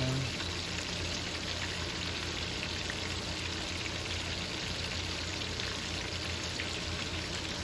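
Flour-breaded chicken wings deep-frying in hot oil in a cast iron skillet: a steady sizzling hiss with fine crackles.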